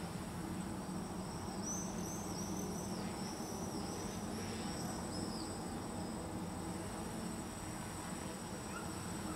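F450 quadcopter's motors and propellers buzzing steadily as it hovers, under a thin steady high insect-like whine, with a run of short high chirps in the first half.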